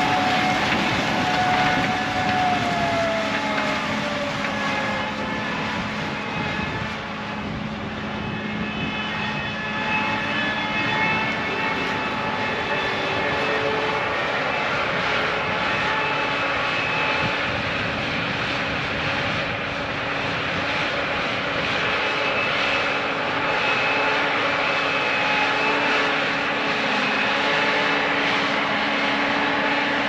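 Gleaner S77 combine harvesting corn, its engine and machinery running with a steady drone and several high whines layered over it. One whine slides down in pitch a few seconds in.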